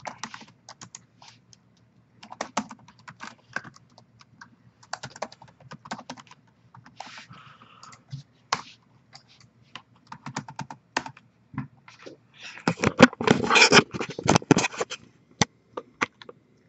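Computer keyboard typing: scattered key clicks, then a fast, louder run of keystrokes about two-thirds of the way through, as entries are typed into an online list randomizer.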